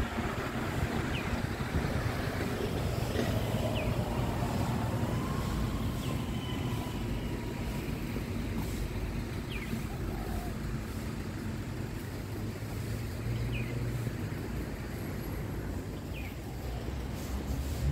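Steady rumble of road traffic, with a short high chirp every couple of seconds, like a small bird calling.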